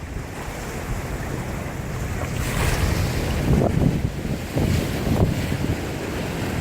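Sea surf washing in along the shore, a wave's hiss swelling about two and a half seconds in, with wind buffeting the microphone as a low rumble.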